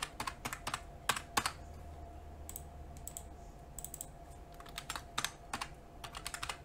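Computer keyboard typing: irregular keystrokes in short clusters, with brief pauses between them.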